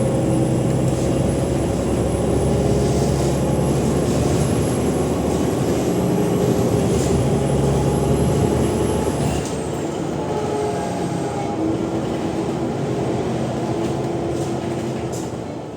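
Cummins ISL 8.9-litre diesel engine of an Alexander Dennis Enviro 500 MMC double-decker bus pulling hard at high revs, with a high, steady turbo whistle over the engine. About nine seconds in the whistle falls away and the engine note drops as it comes off load, and the sound fades near the end.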